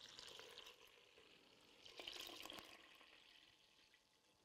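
Milk poured from a jug into a saucepan of dry semolina and sugar, a faint liquid pouring sound that comes in two short stretches, near the start and about two seconds in.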